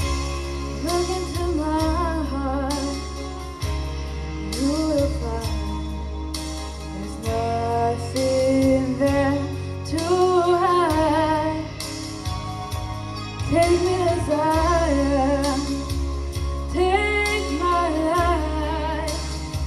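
A boy singing solo into a microphone, his notes held and wavering, over instrumental accompaniment with a steady bass.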